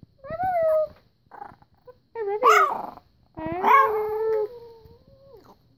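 Chihuahua making a string of about four pitched, howl-like yowls that rise and fall, "talking" as if trying to say "I love you" back. The last yowl is the longest, held steady and then trailing off.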